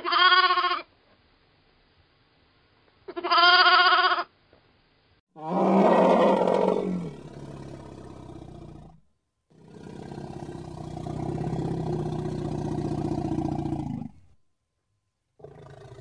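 Sheep bleating twice, two short calls about three seconds apart. Then a different animal gives a harsh call that falls in pitch, followed by a long, low growl with a rough, pulsing texture that stops suddenly.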